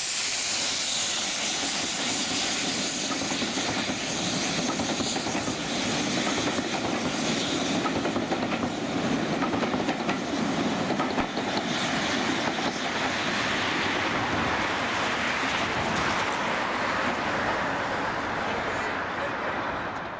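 Steam-hauled passenger train passing directly below: a sudden rush of steam and exhaust as the locomotive goes under, then the coaches rolling past with wheels clicking over the rail joints.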